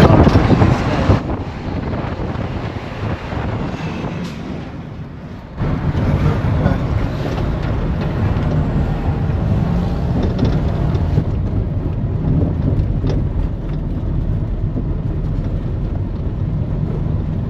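A vehicle driving along a road: a steady low engine and road rumble with wind buffeting the microphone. The noise is loudest in the first second, dies down for a few seconds, then jumps back up about five and a half seconds in and holds steady.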